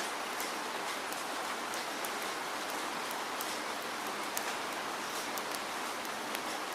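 Steady rainfall: a dense, even hiss of rain on a surface, with scattered sharper drops ticking through it.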